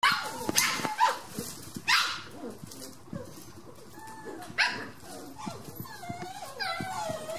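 Eight-week-old Dandie Dinmont Terrier puppies at play, giving sharp high yaps and barks, loudest in the first two seconds and again about four and a half seconds in, with wavering whines near the end.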